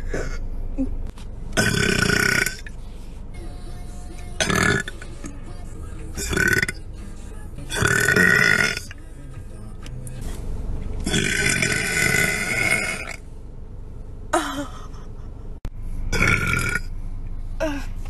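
A woman burping loudly about seven times, some short and some drawn out, the longest lasting about two seconds.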